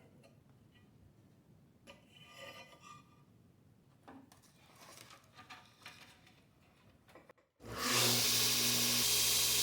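Light, irregular scraping and rubbing on steel blades. About seven and a half seconds in, it cuts suddenly to a belt grinder running steadily and loudly with a low hum.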